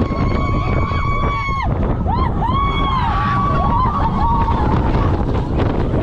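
Riding aboard the Voltron Nevera roller coaster: wind buffeting the microphone over a steady heavy rumble of the train running on the steel track. Riders scream and whoop over it, one long held scream at first, then several rising-and-falling yells from about two seconds in.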